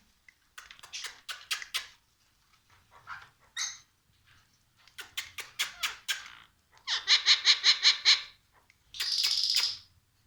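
Pet parrot making runs of sharp clicks, then a rapid pulsed chattering call about seven seconds in and a shrill squawk lasting about a second near the end.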